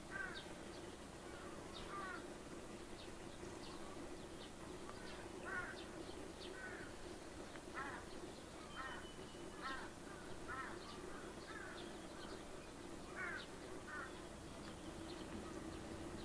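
Birds giving short calls again and again, irregularly spaced, with a lull of a few seconds before they come more often. A steady low drone runs underneath.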